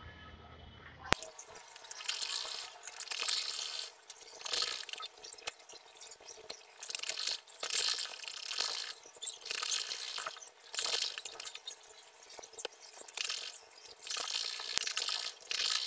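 Sewing machine stitching a seam in short runs of about a second each, with brief pauses between them. It starts abruptly about a second in.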